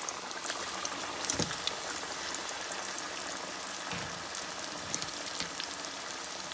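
Flour-coated chicken breast frying in hot oil in a pan: a steady crackling sizzle as the oil bubbles hard around the freshly dropped-in piece. A soft knock about a second and a half in.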